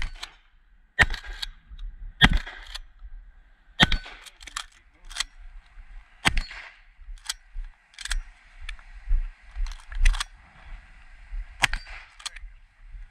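Shotgun firing a string of shots at an irregular pace, about six heavy blasts spread over some twelve seconds, with lighter sharp cracks in between.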